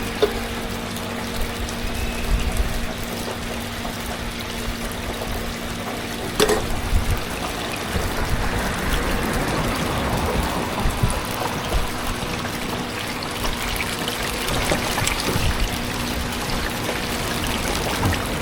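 Food deep-frying in a pot of hot oil, a steady crackling sizzle, with one sharp clack about six seconds in.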